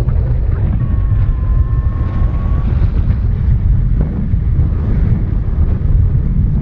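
Steady low rumble of wind buffeting a GoPro Hero 6's microphone in paragliding flight.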